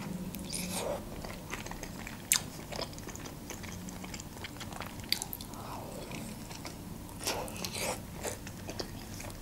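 A person biting and chewing a Georgian khinkali dumpling dipped in sauce: soft, wet mouth sounds with scattered short clicks and smacks.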